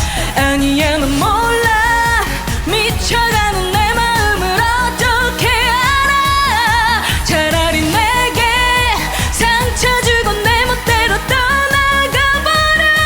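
Trot song with a steady beat, its melody sung with strong vibrato on long held notes.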